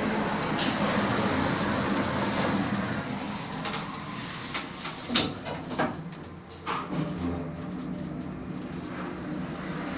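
Machine-room-less passenger lift in use: clicks and clunks from the doors and car, the sharpest about five seconds in, then a steadier low running hum as the car travels.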